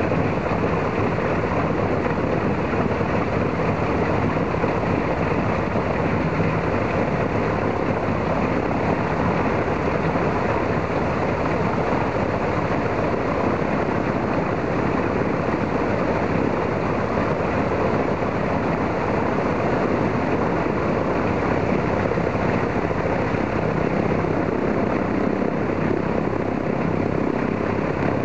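Ilyushin Il-14's Shvetsov ASh-82T fourteen-cylinder radial engine idling steadily while warming up, its propeller turning slowly.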